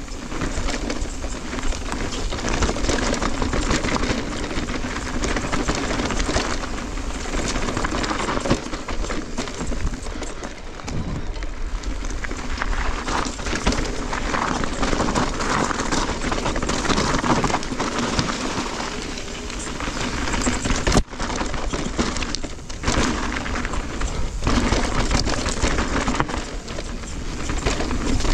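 Electric mountain bike ridden down a loose dirt trail: a steady rush of tyre noise over dirt and stones, with rattling and knocking from the bike and wind noise on the helmet camera's microphone.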